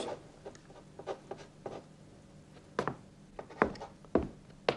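Scattered light taps and scrapes, with a few sharper wooden knocks in the second half.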